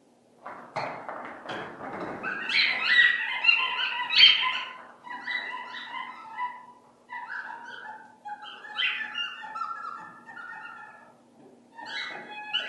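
Dog vocalizing: a few short, rough calls in the first couple of seconds, then a long string of short, high whines and yelps.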